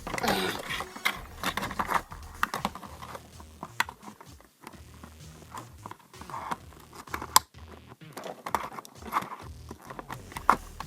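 Hands handling small plastic toy pieces and packaging: scattered light clicks and rustles, with one sharp click about seven seconds in.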